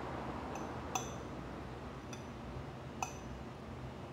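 Metal cutlery clinking against a plate as food is scooped up: a few light, scattered clinks, the sharpest about a second in and about three seconds in.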